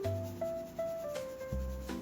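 Background music: a melody of short, steady notes over a bass line, with a few sharp percussive hits.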